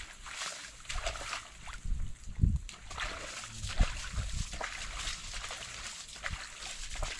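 Irregular splashing and sloshing in water, with a few heavier low thuds, the loudest about two and a half and four seconds in.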